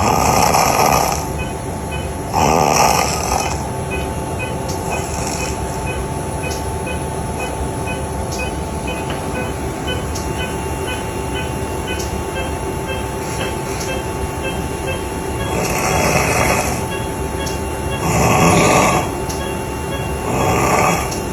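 A person snoring in five roughly one-second rasping breaths, two at the start and three near the end, with a stretch of about twelve seconds between them without a snore, the pattern of snoring broken by pauses seen in sleep apnea. A steady hum runs underneath.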